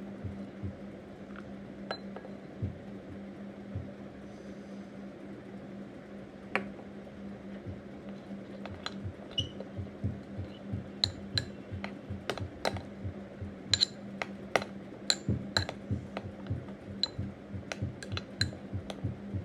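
A spoon stirring a thick flour-and-baking-soda mixture in a bowl, knocking and clicking against the bowl, the clicks coming faster and louder in the second half. A steady low hum runs underneath.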